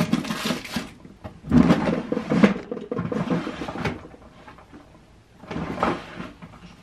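Drawers and cupboards opened and shut and their contents rummaged through, in several separate bursts of clattering, during a search for a missing item.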